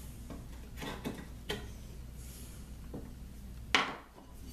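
Hand chisel paring and scraping waste out of the end of a mortise in a wooden board, a few short strokes. Near the end comes one sharper, louder knock.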